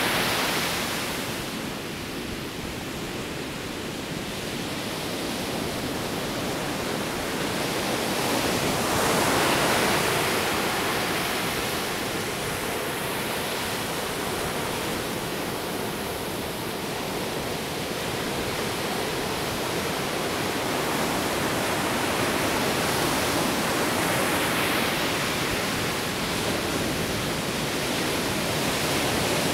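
Ocean surf breaking on a sandy beach: a continuous rushing wash that slowly swells and fades with the waves, surging about ten seconds in and again about twenty-five seconds in.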